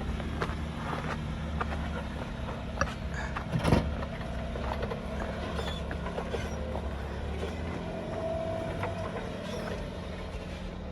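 Jeep engine running low and steady while crawling over rock, with scattered clicks and creaks and one louder knock a little under four seconds in.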